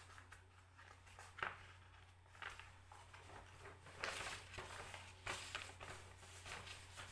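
Faint room noise: scattered soft clicks and rustles over a low steady hum, with one sharper click about a second and a half in and a brief stretch of rustling after the middle.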